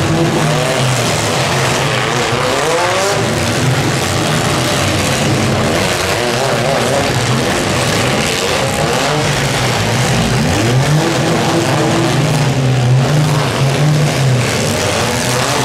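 Engines of several economy compact demolition derby cars revving hard, their pitch repeatedly climbing and dropping as the cars push and grind against one another, over a steady noisy din.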